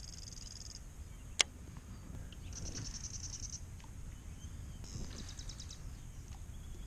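A bird giving three short, rapid high trills, a couple of seconds apart, over a low steady rumble, with one sharp click about a second and a half in.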